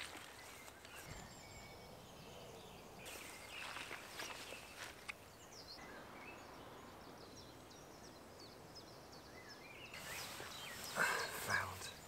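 Faint birdsong of small birds, many short high chirps, with footsteps swishing and rustling through long grass about three seconds in and again near the end, where they are loudest.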